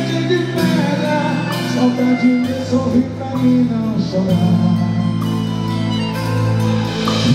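Live forró band music with a male singer singing a slow, emotional song over sustained bass notes that change every second or two.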